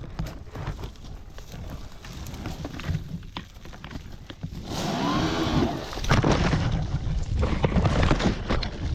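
Electric dirt bike riding over a debris-strewn forest trail: twigs and branches crackling and snapping under the tyres. About five seconds in, the motor whine rises and falls briefly, then a louder rush of tyre and wind noise follows.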